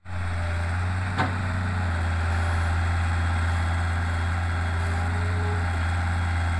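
Hitachi EX160 wheeled excavator's diesel engine running steadily while the bucket digs into soil, with one sharp knock about a second in.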